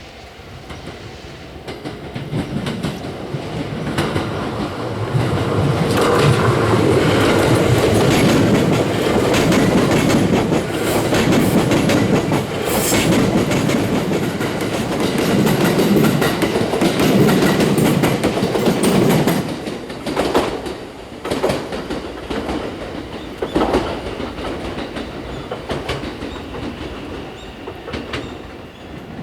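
JR West electric train passing over a level crossing, its wheels clacking over the rail joints. The sound builds up over the first few seconds, stays loud for about fifteen seconds, then drops to a lower rumble with scattered clicks.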